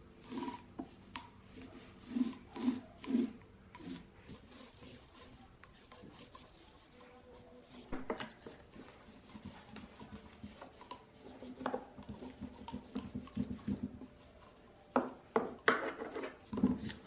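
Irregular rubbing and scraping strokes on a wooden speaker cabinet, with a few louder, sharper strokes and knocks near the end.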